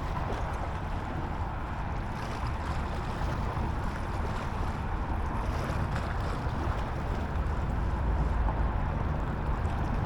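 Steady outdoor wind rumbling on the microphone, strongest in the low range, with no clear events.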